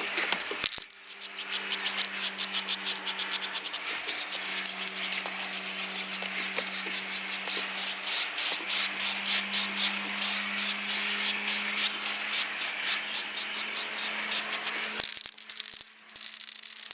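Aerosol spray-paint can hissing in long passes as a coat of paint goes on, breaking off about fifteen seconds in and starting again near the end. A faint steady hum runs underneath.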